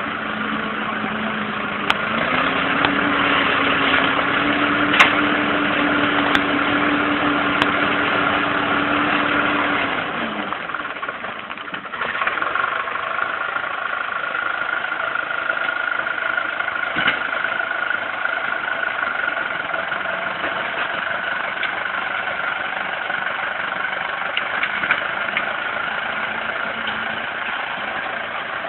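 Fordson Super Major tractor's four-cylinder diesel engine working a Cooks winch to drag in a tree butt. About two seconds in the revs rise and are held for some eight seconds, then drop away, and the engine settles to a steady run with a thin whine over it.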